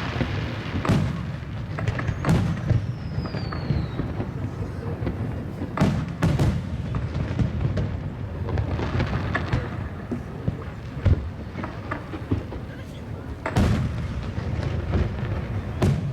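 Fireworks bursting: sharp bangs a few seconds apart, several close together around six seconds in and again near the end, over a steady low rumble and crowd chatter. A short falling whistle follows the second bang.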